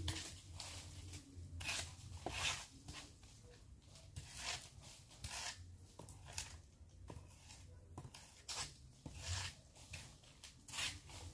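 A stick scraping and rustling through dry leaves and debris as a grave is cleared by hand, in short irregular strokes about once a second.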